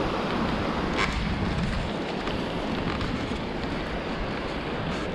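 Steady wind buffeting the microphone over the wash of small surf, with the low rumble of a folding beach wagon rolling across wet sand and a brief knock about a second in.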